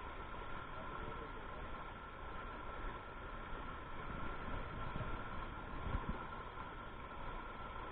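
Steady rush of river water tumbling over rocks at a small cascade, with a couple of faint knocks about five and six seconds in.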